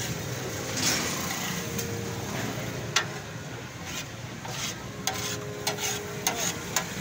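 Metal spatula scraping and clinking on a large iron tawa griddle. There is one sharp clink about three seconds in and several more near the end, over steady background noise.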